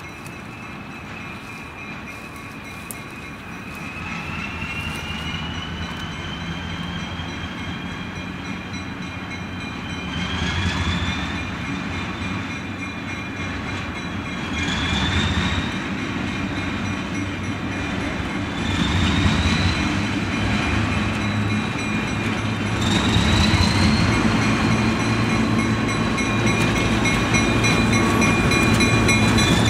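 Diesel locomotives approaching under power, growing steadily louder. The engine sound swells in several surges, each with a high whine that rises in pitch and then slowly falls.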